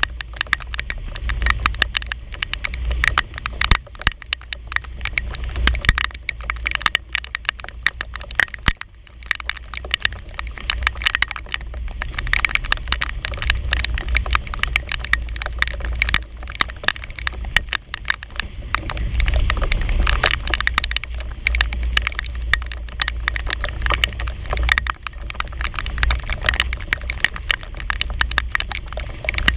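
Rain falling on the boat and the camera: a dense, irregular crackle of drops over a low, steady rumble.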